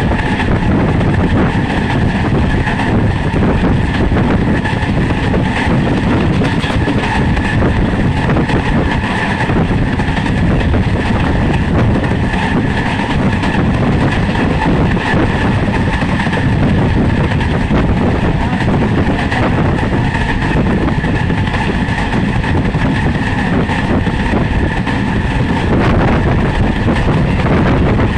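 Indian Railways passenger train running at speed, heard from inside a coach: a steady, loud noise of the wheels running on the rails.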